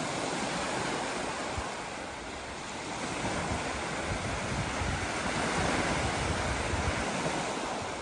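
Small sea waves breaking and washing up onto a sandy beach in a steady wash of surf. Wind buffets the microphone with a low rumble that grows stronger about three seconds in.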